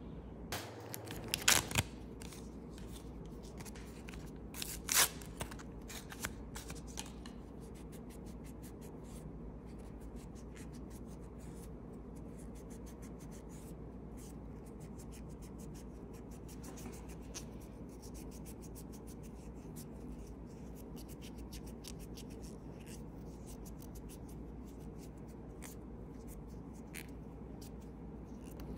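Alcohol-soaked cotton pad rubbed over fingernails in short, light, scratchy strokes, prepping the nails by removing oils so the base coat will not lift. A few sharp clicks and crackles come near the start, over a steady low hum.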